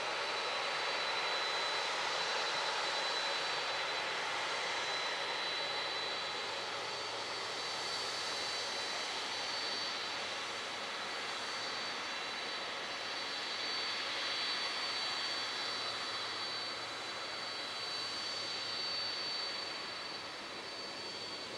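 Boeing 767-300 freighter's jet engines running at low power while it taxis after landing. It is a steady rushing whine with a thin high tone on top, easing off slightly near the end.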